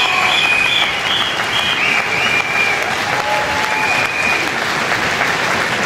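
A large crowd applauding at the end of a speech, with cheering voices over the clapping in the first couple of seconds.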